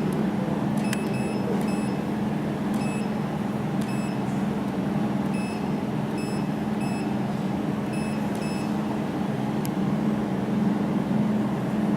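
Jewelry laser welding machine running with a steady low hum, with short high beeps, singly and in small groups, about every second as the laser pulses fire while welding silver.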